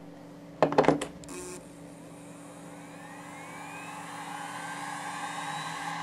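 Western Digital Raptor X 10,000 rpm hard drive spinning up. A burst of loud clicks comes about half a second in. Then a whine climbs steadily in pitch and grows louder as the platters come up to speed.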